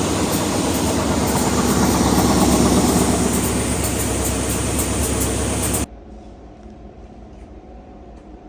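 R-RP1300 wide belt sanding machine running loudly and steadily. About six seconds in, the sound drops suddenly to a much quieter steady hum.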